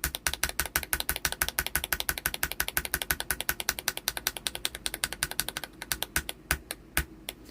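Lubed tactile frankenswitch, an Outemu Silent Lemon combined with an Outemu Blue click jacket, pressed over and over: a quick run of sharp clicks, about ten a second, that thins out near the end. Each press gives a crisp snap.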